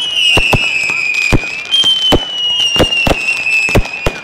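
Fireworks going off: a run of sharp bangs at irregular intervals under overlapping high whistles, each lasting about a second and gliding slowly downward, from whistling fireworks climbing on gold trails.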